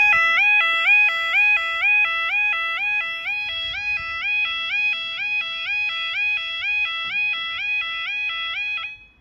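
Level crossing audible warning alarm sounding a two-tone warble, stepping between a higher and a lower note about twice a second. It cuts off abruptly near the end.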